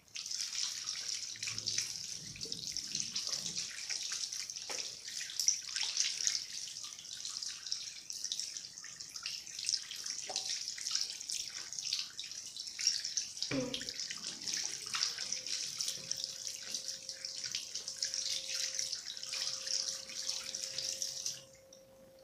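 Bathroom sink tap running, with hands being washed under the stream; the water shuts off abruptly near the end. A faint steady tone joins about two-thirds of the way through.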